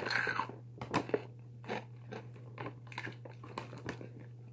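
A person biting into and chewing a piece of Cookies & Cream cereal: a loud first crunch at the start, then irregular smaller crunches as it is chewed.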